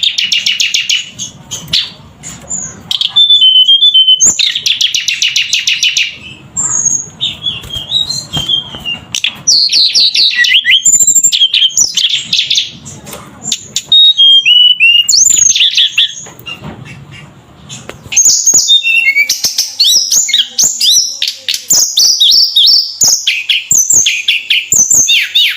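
Tledekan gunung songbird singing loudly and continuously, a busy song of fast rattling trills, sharp whistled notes and quick varied phrases with only short pauses, densest near the end.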